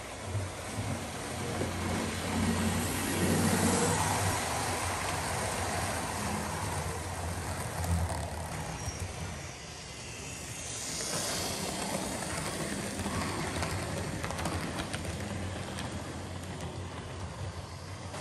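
OO gauge model trains running on the layout: a steady low hum and rumble of the locomotive motors and wheels on the track, swelling and easing as trains pass.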